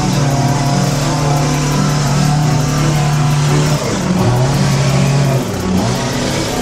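Petrol hedge trimmer's small engine running at high throttle as it cuts a hedge, its pitch dipping briefly about four seconds in and dropping again near the end as the throttle eases.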